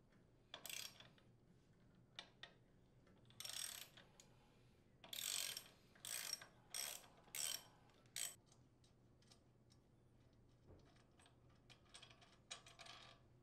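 Socket ratchet clicking in short runs as it backs out the center bolt securing a chipper shredder's blade and impeller, fading to a few faint ticks over the last few seconds.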